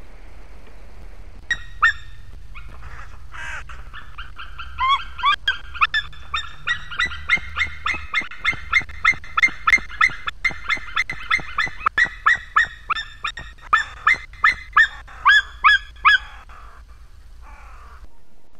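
White-tailed eagle calling a long, fast series of high, repeated notes, about three a second, that runs for most of fifteen seconds and stops about sixteen seconds in, over a steady low rumble.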